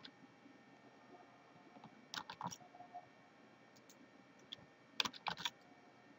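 Faint key taps and clicks from a computer keyboard and mouse, in two quick clusters about two seconds and five seconds in, with a few single clicks between.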